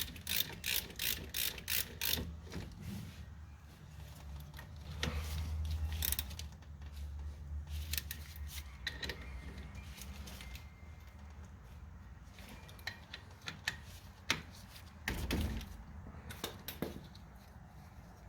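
Ratchet wrench clicking in quick, even strokes while tightening 17 mm bolts, for about two seconds. Scattered clicks and knocks from tool handling follow.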